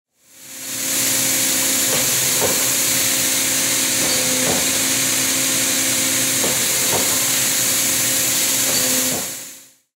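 Comco KB-50ND CNC tube bender running: a steady hum with a strong high hiss, and a few faint knocks now and then.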